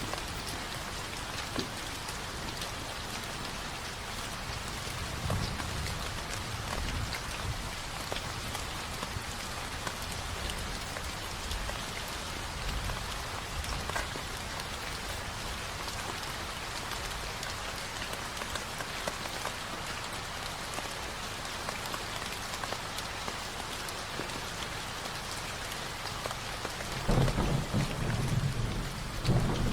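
Steady rain falling, with low rumbles of thunder rolling through it, the loudest near the end.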